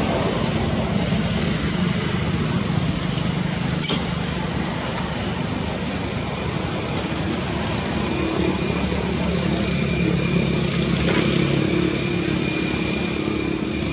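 A vehicle engine runs steadily over road noise, its hum shifting in pitch about eight seconds in. There is one sharp click about four seconds in.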